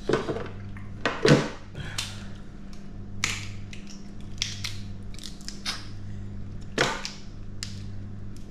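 Cooked yabby shells being cracked and snapped apart by hand: several sharp cracks, the loudest about a second in and another near seven seconds, over a steady low hum.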